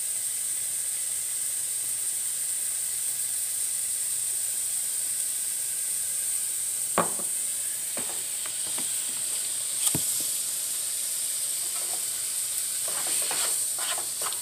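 Ground chuck and onion frying in a pan with a steady, even sizzle. A utensil knocks sharply on the pan about seven seconds in and again around ten seconds, and a few quicker knocks and scrapes come near the end as the meat is stirred.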